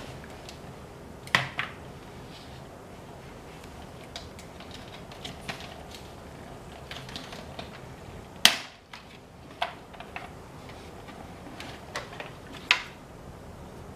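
Hard plastic Minion-shaped storage box being set on a small table and its lid handled: scattered clacks and knocks, the sharpest about eight and a half seconds in.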